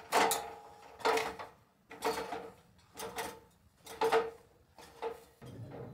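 Footsteps on the rungs of an aluminium ladder as a man climbs it: a clank about once a second, each followed by a short metallic ring.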